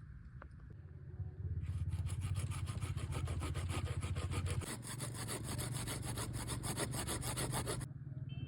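A saw cutting through wood in rapid, even back-and-forth strokes. It starts about a second and a half in and stops near the end.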